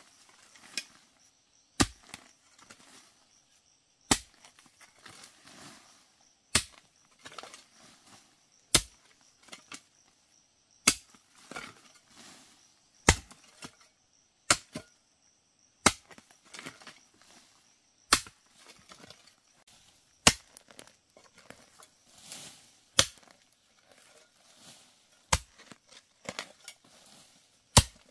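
A hand tool striking hard again and again, about one sharp blow every two seconds, with faint rustling and scraping between the blows.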